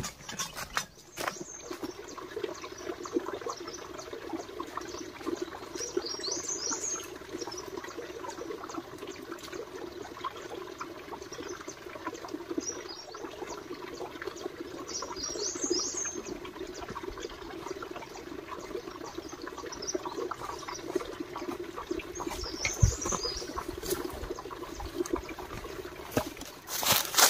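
Birds chirping three times in short, high twittering calls over a steady low rushing noise.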